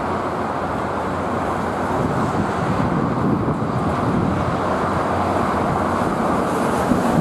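Steady mixed rumble of heavy road traffic and an approaching diesel freight train led by G-class locomotive G532 hauling hopper wagons.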